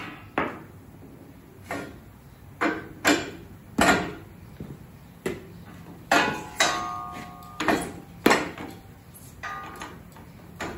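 About a dozen irregular metal clanks and knocks, a couple of them ringing on briefly, as steel gym equipment is handled and set onto a vehicle lift.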